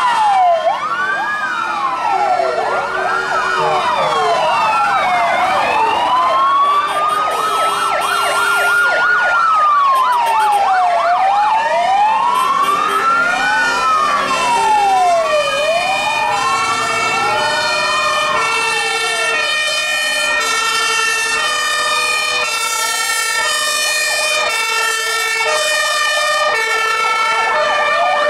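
Sirens on several fire trucks sounding at once as the trucks pass. For the first half they are overlapping rising-and-falling wails; from about halfway on, several two-tone sirens switch back and forth between a high and a low note, each at its own pitch.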